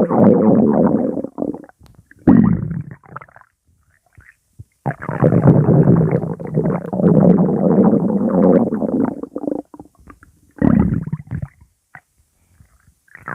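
Stomach growling in gurgling bursts. A short one opens, brief ones follow around two seconds in, a long growl of about five seconds fills the middle, and a last short one comes about ten seconds in, with silent gaps between.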